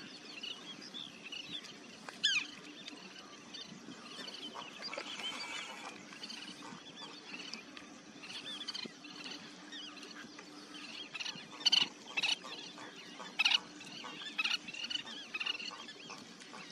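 A busy chorus of short, high, squeaky bird chirps at a wetland feeding flock, with a few sharp clicks standing out about two seconds in and again in a cluster around twelve to fourteen seconds in.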